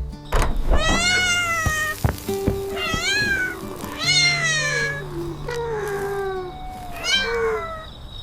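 Kitten meowing several times, each meow rising and then falling in pitch, over soft background music.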